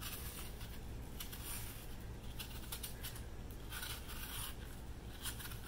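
Faint scraping and cutting of a small blade peeling the skin off a Honeycrisp apple in a continuous strip, with irregular small crisp ticks as it cuts.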